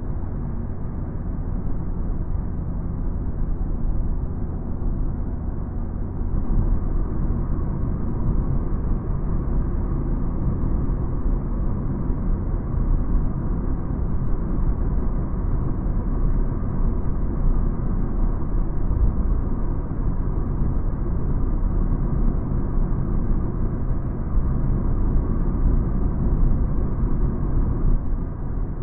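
Steady road noise inside a car cruising at about 60 mph: a rumble of tyres, wind and engine, a little louder from about six seconds in.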